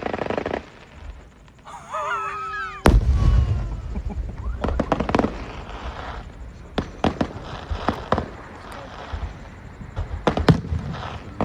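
Fireworks display: a fast string of crackling reports ends just after the start. After a short lull, a loud deep boom about three seconds in is followed by scattered sharp bangs and crackles.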